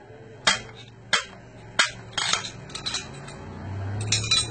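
Metal rod knocking against the internal parts of a PR900W PCP air rifle to drive out its valve and hammer mechanism: five or six sharp metallic knocks about half a second apart, then a quick run of clinks near the end.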